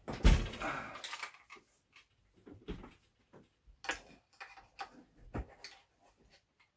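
Handling noise from a handheld luggage scale being hooked onto an air rifle: a loud rustling knock at the start, then scattered light clicks and taps.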